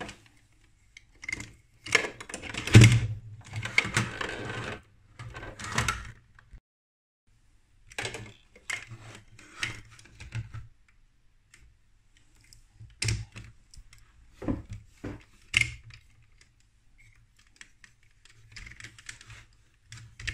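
Lego Duplo plastic bricks and parts being handled and snapped together: irregular clicks and short rattles, with a pause of about a second partway through.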